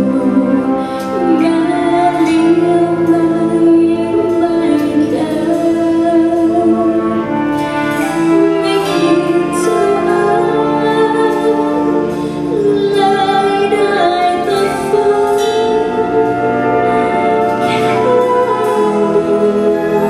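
A concert wind band of woodwinds, brass and percussion playing a slow, sustained piece, with a female vocalist singing over it.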